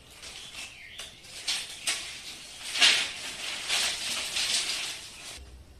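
A bundle of dry jute sticks rustling and clattering against each other as it is sorted and gathered by hand. The rustling is uneven, with sharper crackles, loudest about three seconds in, and stops shortly before the end.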